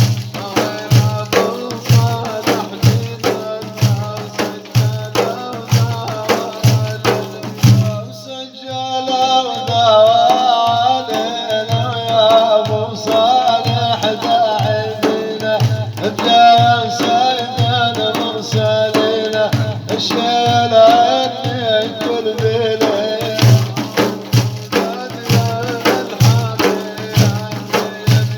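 Instrumental Arabic folk music: a steady low drum beat of about two strokes a second under a wavering melody line. The beat drops out briefly about eight seconds in, and the melody comes to the fore.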